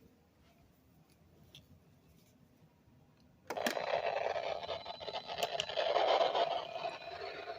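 Near silence, then about three and a half seconds in a weather radio receiver's static hiss starts suddenly and runs on, rising a little near the middle.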